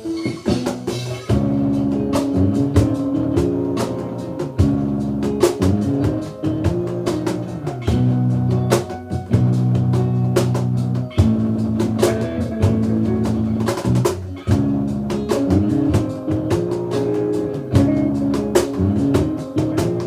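Music with a busy drum beat over sustained bass and chords; the drums fill in about a second in.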